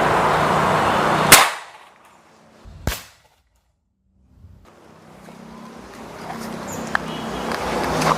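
FX Royale 500 PCP air rifle firing a single sharp crack just over a second in, heard over steady background noise. A second, shorter sharp crack follows near three seconds.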